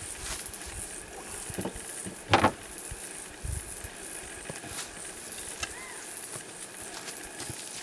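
Scattered knocks and rustling from handling gear, with one louder, sharper knock about two and a half seconds in, over a steady high hiss.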